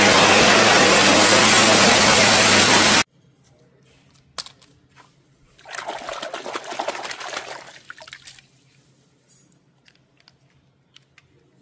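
Water running hard in a steady hiss that cuts off suddenly about three seconds in, then a sharp click and a shorter splash of water with small clicks, as toys are being washed.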